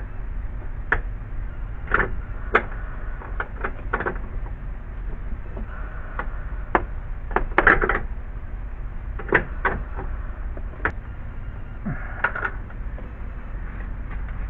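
Irregular metallic clicks and taps of a wrench working on a transmission cooler line fitting as it is tightened, over a steady low hum.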